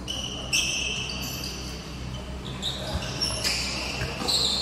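Sports shoes squeaking on the tiled floor of an indoor futsal court: many short, high squeals at different pitches, overlapping, with a few sharp knocks of the ball being kicked.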